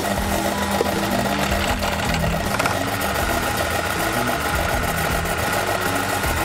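Benchtop drill press running steadily, its twist drill boring into a metal block held in a machine vise, with cutting oil applied to the bit.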